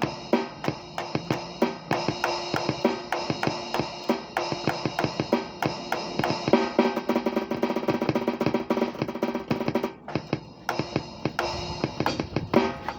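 Drum kit played freely with fast, irregular hits, thickening into a dense run of rapid strokes from about six to ten seconds in; a brief gap follows before the playing picks up again.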